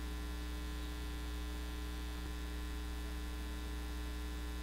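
Steady electrical mains hum with a stack of higher overtones, unchanging throughout.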